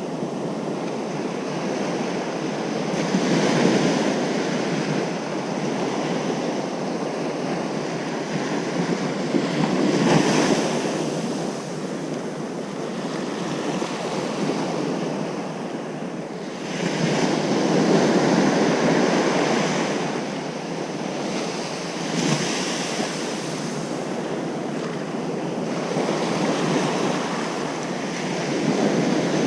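Ocean surf on a beach: a continuous wash of waves that swells every several seconds as each wave breaks, the biggest surge about two-thirds of the way through.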